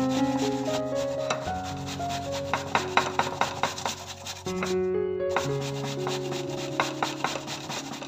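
A peeled apple being grated on a metal box grater: quick repeated rasping strokes, breaking off briefly a little past halfway and then resuming. Soft background music plays underneath.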